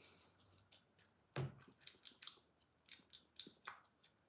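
Faint, scattered clicks and soft smacks from a sauce bottle and its peeled-off seal being handled, with one louder knock about a second and a half in.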